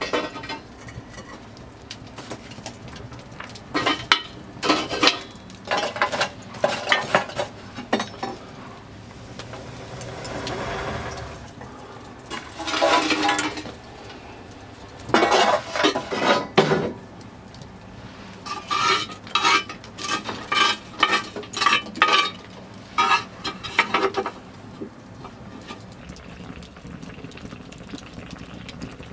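Clay and metal cookware being handled over a wood fire: clusters of sharp clinks and knocks, some with a short ring, separated by quieter stretches of steady low background.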